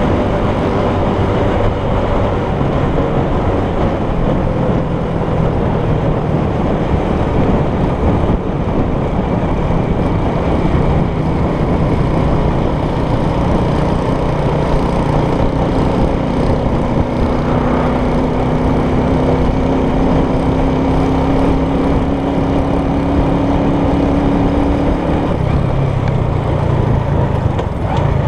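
Small motor scooter's engine running steadily while riding along a road, under a steady rushing noise of wind and road.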